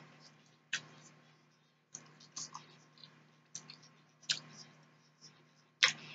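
Close-miked eating sounds: scattered short, wet mouth clicks and smacks as a forkful of sauced pork steak is taken into the mouth and chewed. The loudest click comes near the end, over a faint steady hum.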